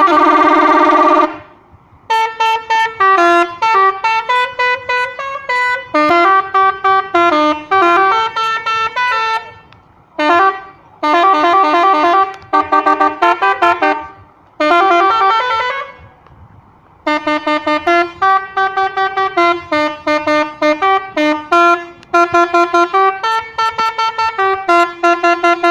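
Telolet multi-tone air horn on a Scania bus playing melodic phrases of quick, changing notes, the phrases broken by short pauses.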